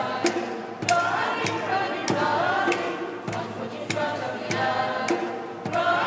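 Mixed choir singing over a steady percussive beat.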